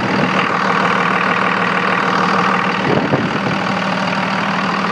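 Cummins 24-valve ISB 5.9 turbo diesel idling steadily and running smoothly, heard close up under the open hood.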